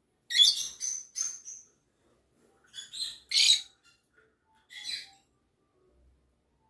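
Lovebird giving short, harsh, high-pitched chirps in three quick bursts.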